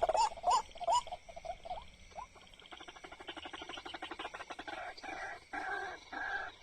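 White-breasted waterhen calls: a few short rising notes, then from about three seconds in a fast, croaking rattle that breaks into repeated bursts.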